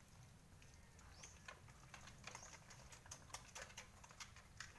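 Faint, irregular little clicks and smacks of a puppy suckling at a dog's teats.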